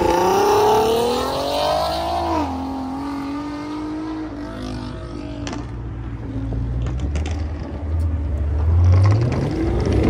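Car engines accelerating hard: one engine revs up in a rising pitch over the first second or two, drops sharply about two and a half seconds in and settles to a steady drone, and another engine's pitch climbs again near the end as the next car pulls away.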